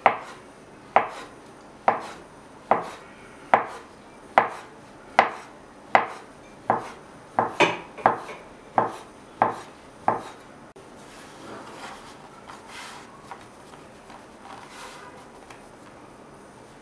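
Large kitchen knife chopping through folded egg dough into a wooden board, a sharp knock each time the blade meets the board, about one a second for some ten seconds, a few quicker near the end of the cutting. After that, soft rustling as hands toss and separate the cut dough pieces.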